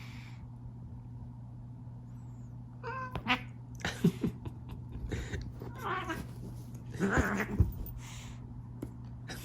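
Kittens play-fighting: one gives a short cry about three seconds in, followed by several seconds of scuffling noises and soft thumps as they wrestle.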